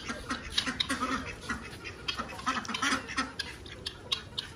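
Ducks quacking in short, repeated calls while feeding.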